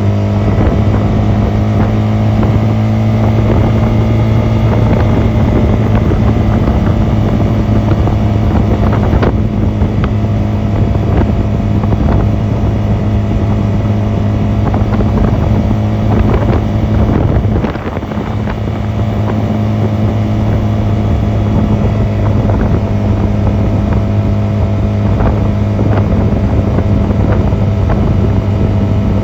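Honda 250cc motorcycle engine running steadily while riding, with wind on the microphone. The engine note dips briefly about two-thirds of the way through, then picks up again.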